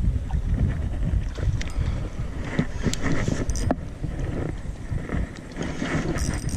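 Wind buffeting the microphone as an uneven low rumble, with a few sharp clicks in the middle.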